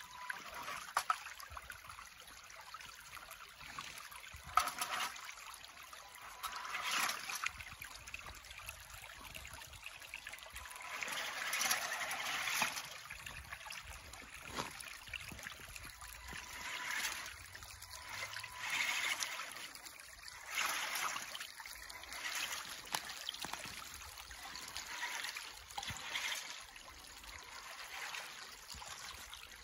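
Shallow creek water trickling and splashing around a radio-controlled rock-crawler truck as it drives through the stream and over rocks. The splashing rises and falls in irregular swells every few seconds, with a few sharp knocks.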